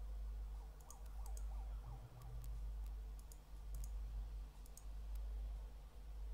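Computer mouse clicking a number of times at uneven intervals, over a steady low electrical hum.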